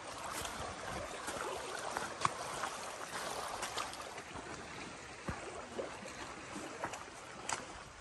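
Water gently running and lapping, with scattered light clicks and knocks; one sharper knock about five seconds in.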